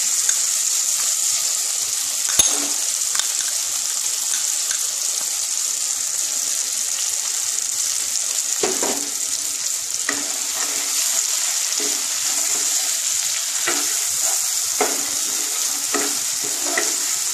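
Oil sizzling steadily in a non-stick kadai as tomatoes and whole spices fry, with a spice paste added to the hot oil. From about nine seconds in, a spatula stirs the paste, knocking and scraping against the pan. There is one sharp click a couple of seconds in.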